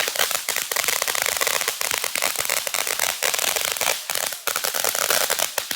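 A long-burning firework crackling and popping in a rapid, unbroken stream, like a string of firecrackers, then cutting off suddenly near the end.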